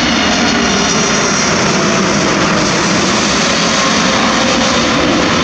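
Loud, steady jet noise of a four-engined Boeing 747 freighter passing low overhead on landing approach, a broad rushing sound with a faint high whine.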